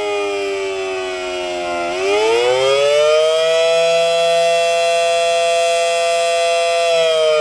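Federal Signal Model 7AT outdoor warning siren sounding a wail, the attack signal: its loud tone falls in pitch, sweeps back up about two seconds in, holds high for a few seconds, then begins to fall again near the end.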